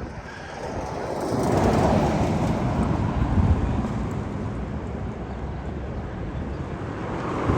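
A car driving past on the street, its engine and tyre noise swelling about two seconds in and then slowly fading.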